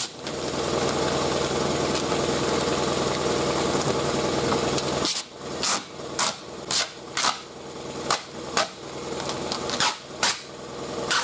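A steady machine drone runs for the first five seconds, then stops. After it, a car door's plastic vapor barrier is peeled away from its sticky sealant, giving a string of about ten short, sharp crackling rips.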